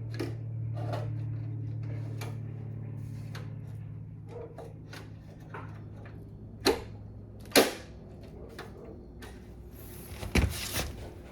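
Hands working inside a desktop PC case while fitting an NVMe SSD: small scattered clicks, two sharp clicks about two-thirds through, and a cluster of knocks near the end, over a low steady hum that fades.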